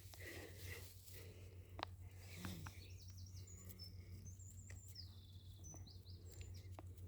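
Faint bird song: several high chirps and whistled glides with a quick trill, over a steady low hum and a couple of soft clicks.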